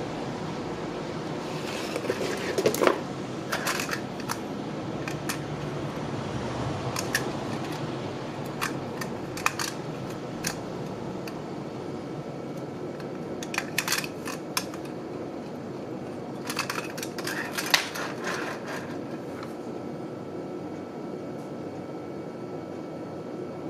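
Scattered light clicks and taps from a tin-plate model tram and its cardboard box being handled, over a steady background hum.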